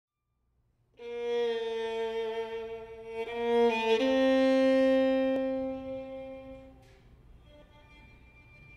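Solo bowed string instrument playing slow, long-held notes, starting about a second in; the last note is the loudest and fades away about seven seconds in.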